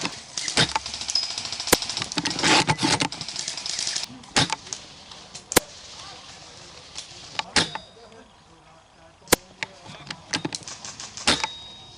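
Airsoft guns firing: sharp single snaps at irregular intervals of a second or two, with a few quicker strings of shots about two and a half seconds in and again around ten to eleven seconds in.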